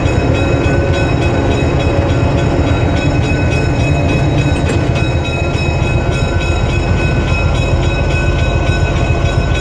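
Diesel-electric locomotive running and moving slowly, heard from inside its cab. A loud, steady engine drone with a steady high-pitched whine above it.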